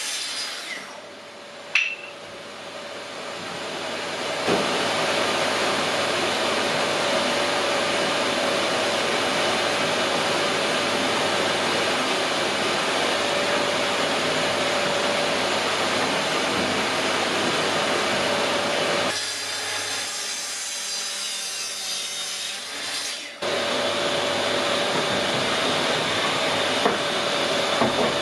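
A Festool TS 55 track saw and its attached dust extractor running, a steady motor drone with one held tone. It dips briefly about a second in with a sharp click, builds back up over a few seconds, then drops for a few seconds late on before cutting abruptly back in at full level.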